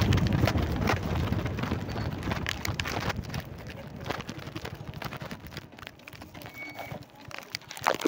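Footsteps of someone walking, with irregular knocks and rustling from a handheld phone being carried; the rumble is heavier at first and fades.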